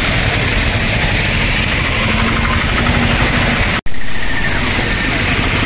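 Loud steady noise of motor traffic mixed with rushing floodwater, with a low engine hum for about a second in the middle. The sound cuts out for an instant about two-thirds of the way through.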